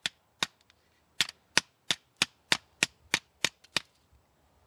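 Baton striking the back of a Swiss Army Hiker's folding blade to drive it through a nearly 2-inch maple round: sharp clacks, two at first, then after a short pause a steady run of about three strikes a second.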